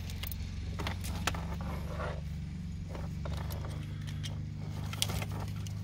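Plastic wiring-harness connectors and loose wires being handled and pushed together behind a car dashboard: scattered light clicks and rustles over a steady low hum.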